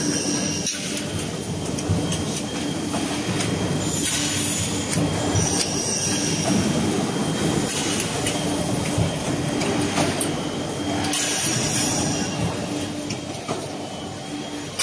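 Machinery of an aluminium solar-frame production line running: a steady mechanical din with a constant hum. Short high-pitched squeals recur several times over it.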